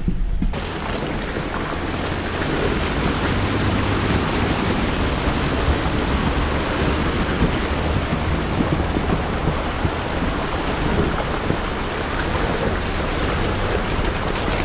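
Water splashing and rushing around a 2021 Jeep Gladiator Rubicon's tyres as it drives up a creek bed. The sound starts suddenly about half a second in and holds steady, with the engine's low hum beneath.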